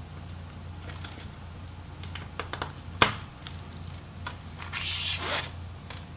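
Small clicks and scratching of a pick working the tiny screw covers off a laptop display's plastic front bezel, with one sharp click about three seconds in and a short scrape near the end.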